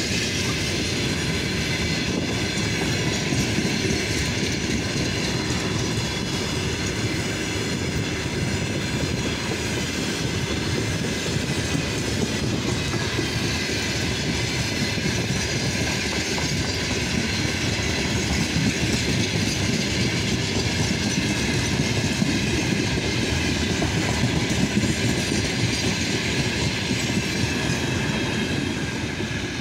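Loaded freight train of four-axle open wagons passing close by at speed: steady rumble and clatter of the wheelsets on the rails.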